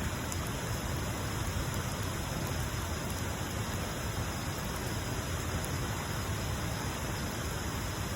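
Bonfire burning: a steady, even rushing noise with a few faint crackles.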